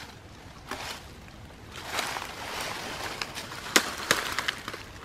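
Rustling and crunching of dry leaves and twigs under a hiker's feet, with a couple of sharp cracks about four seconds in.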